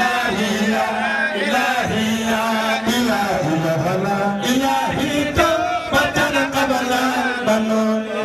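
Men chanting a Sufi religious song into handheld microphones, amplified through a sound system: a lead voice winds up and down over a steady held low note.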